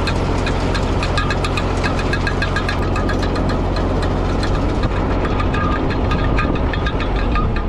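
Tractor engine running steadily while pulling a manure spreader, with rapid clicking and clattering over the engine note.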